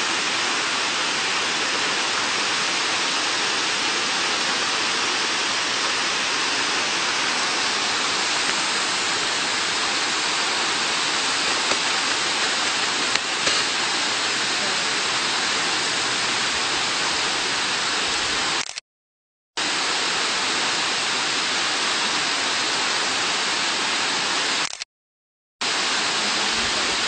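Waterfall rushing: a steady, even hiss of falling water with no change in level. It cuts out completely twice for under a second, about two-thirds of the way in and again near the end.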